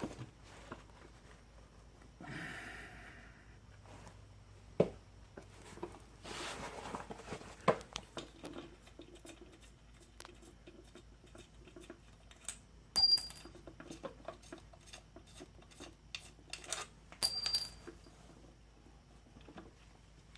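Small metal parts and tools being handled during chainsaw crankcase assembly: scattered light clicks and taps, and two sharp ringing metallic clinks about four seconds apart in the second half.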